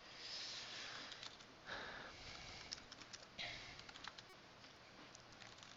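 Faint computer keyboard typing: scattered soft clicks from about three seconds in. Three quiet sniffs close to the microphone come in between.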